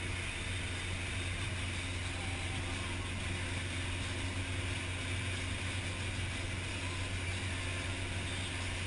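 Motorboat running steadily at towing speed: a constant low engine hum under the even rush of water churned up in its wake.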